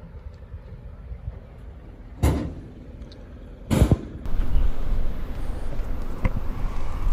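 Two loud bangs about a second and a half apart, like footfalls on the steel top of a steam locomotive, over wind rumbling on the microphone, which grows louder after the second bang.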